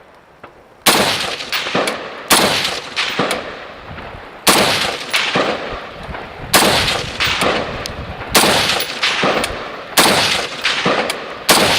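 Rifle shots: about seven, spaced roughly one and a half to two seconds apart, each sharp crack followed by a long echoing tail.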